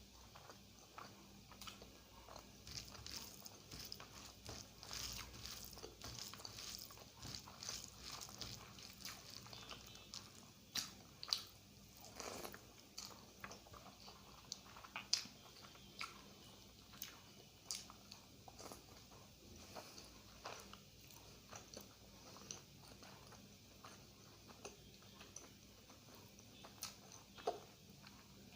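Close-miked chewing and mouth sounds of a person eating egg curry with rice: a steady run of short clicks, with a few sharper, louder ones spread through.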